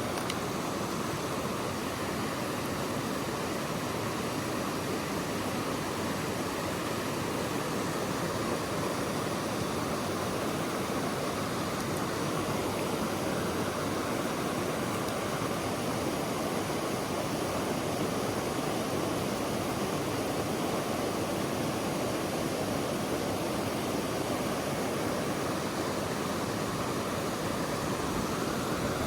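Mountain stream rushing over rocks, a steady unbroken rush of water.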